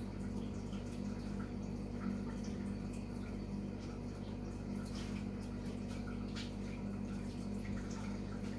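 Steady low electrical hum of room tone, with faint scattered clicks.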